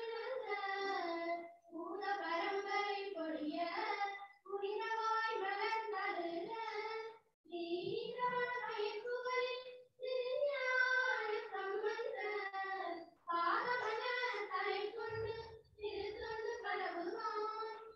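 Schoolgirls singing a prayer song together, line by line, with short breaks between the sung phrases.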